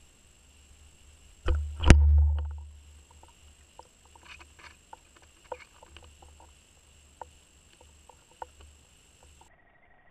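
Underwater audio through a waterproof camera housing: a heavy thump with a deep boom about two seconds in, then scattered faint clicks and taps over a steady high electronic whine and low rumble. Near the end the background hum changes abruptly.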